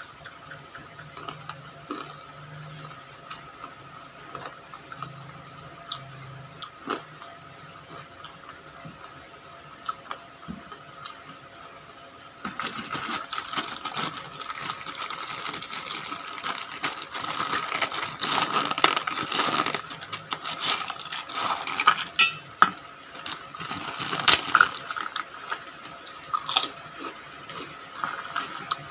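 Close-up eating sounds of crunchy fried chicken being bitten, torn and chewed. It is soft and scattered at first, then a dense, loud crunching about twelve seconds in that lasts over ten seconds and eases off near the end. A faint steady high tone runs underneath.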